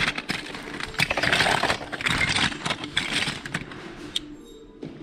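Hands rummaging through a heap of loose plastic toys and parts: bursts of clattering, rattling and scraping that die down about a second before the end.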